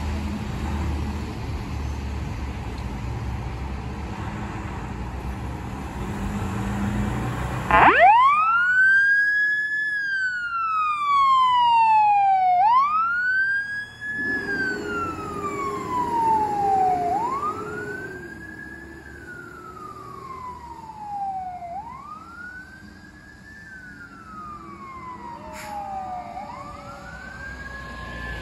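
Passing cars hiss on a wet road, then a fire engine's siren starts about eight seconds in. It wails in repeating cycles, each a quick rise and a long fall lasting about four to five seconds, with a lower steady tone joining briefly in the middle. The siren grows fainter as the engine drives away.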